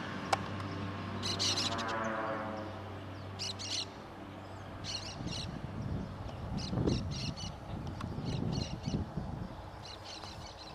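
Air Tractor 502 crop duster's turboprop engine and propeller going past low and away, its pitch dropping and the sound fading over the first few seconds. Birds call in short repeated bursts throughout.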